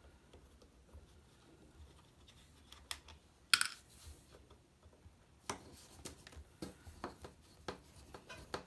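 Scattered small clicks and taps of hard objects being handled. The sharpest tap comes about three and a half seconds in, then a run of quick clicks follows near the end.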